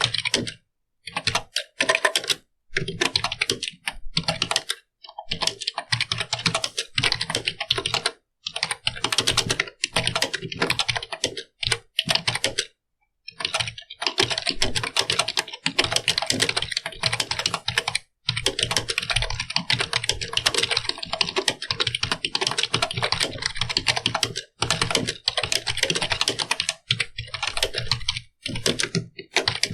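Computer keyboard being typed on steadily, fast runs of key clicks broken by brief pauses, the longest about thirteen seconds in.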